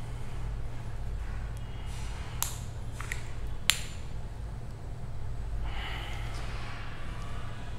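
Screw cap of a 50 ml miniature whisky bottle being twisted open, with a few sharp clicks between two and four seconds in. Then a sniff at the open bottle's neck about six seconds in.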